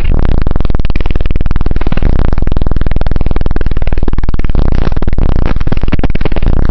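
Car audio subwoofers playing a very low, sustained bass note at extreme volume inside a van. It comes through as a steady, fast, distorted buzzing rattle.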